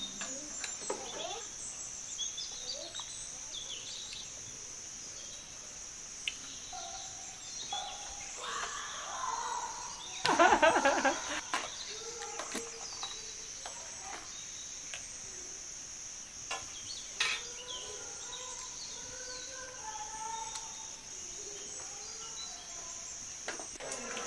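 A steady high chirring of crickets runs throughout, with faint voices in the background and a louder voice-like call about ten seconds in. There are a few short clicks of a ladle against a metal pot.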